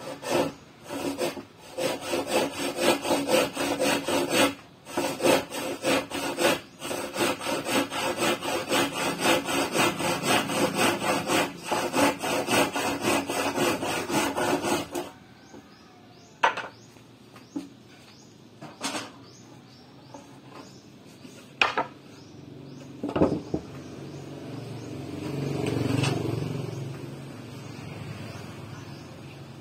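Handsaw cutting through a wooden board with quick, steady back-and-forth strokes, which stop about halfway through. After that come a few sharp knocks and a low rumble that swells and fades near the end.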